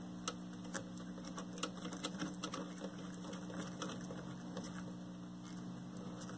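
Small irregular clicks and scratches of the 1973 Admiral colour TV's tuner knob being turned by hand, over a steady low hum.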